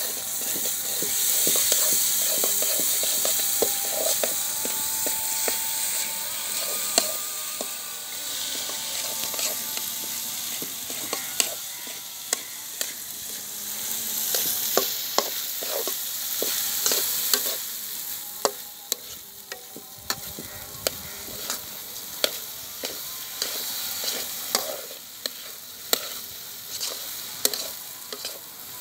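Soaked rice and red lentils sizzling in hot oil with fried onions in a large metal karahi, while a metal spatula scrapes and clinks against the pan as the mixture is stirred. The sizzle is loudest at first and then eases off, with sharp irregular clicks from the spatula throughout.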